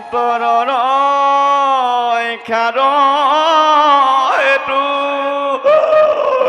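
A man singing long drawn-out notes in chant style, with small wavers and bends in pitch and a short break about two and a half seconds in. Near the end the singing stops and a rougher, noisier sound takes over.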